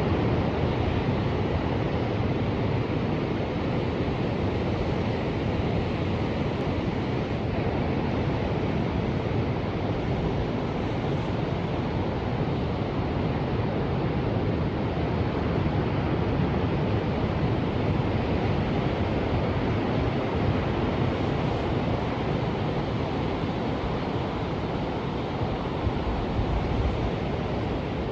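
Ocean surf: a steady, continuous wash of waves, with no single crash standing out.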